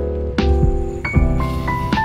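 Background music: held melodic notes over a bass line, with two sharp drum hits.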